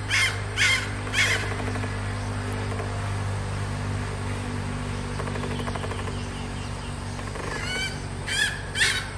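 Red junglefowl hen calling: a few short, sharp cackling notes about two a second, a lull of soft low clucks, then the sharp notes starting again near the end.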